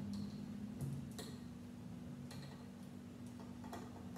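A few faint, scattered clicks of plastic Lego pieces being handled and pressed onto a model, over a steady low hum.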